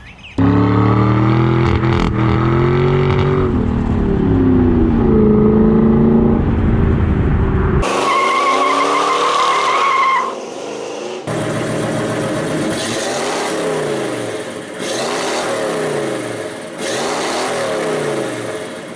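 Car engine revving, its pitch rising and falling; about eight seconds in it cuts suddenly to a steady high tyre squeal lasting about two seconds, followed by further short stretches of engine sound with repeated falling-and-rising sweeps.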